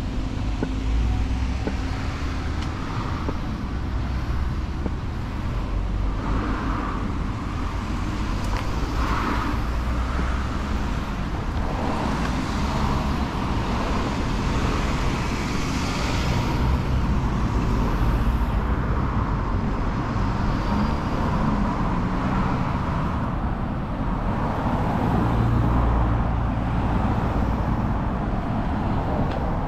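Road traffic: a steady rumble of cars and other vehicles, swelling several times as individual vehicles pass close by.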